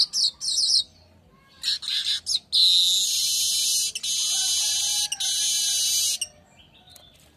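Manyar weaver singing: a few quick, high, down-slurred notes, then after a short pause a long, high, buzzy trill of about four seconds, broken twice briefly.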